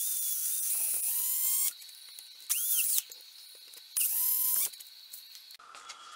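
Cordless drill boring into a wooden chair joint to drill out an old dowel hole: a long burst of about a second and a half, then two short ones, each starting with the motor's rising whine.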